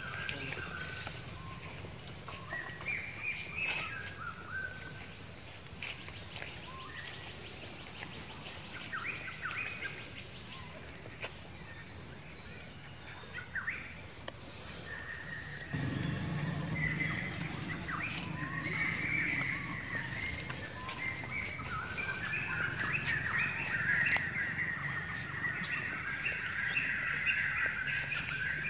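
Birds chirping against outdoor background noise. About halfway through, the background steps up louder with a low hum, and the chirping becomes denser and more continuous.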